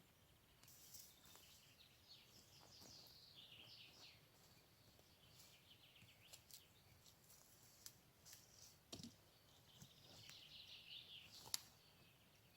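Faint birdsong: short trilling phrases that fall in pitch, with a few sharp clicks or snaps scattered through, the loudest click about eleven and a half seconds in.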